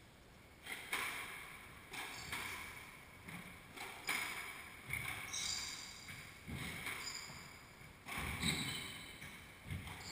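Squash rally: the ball cracks off rackets and the court walls, roughly once a second, with short high squeaks of sneakers on the hardwood floor between the hits.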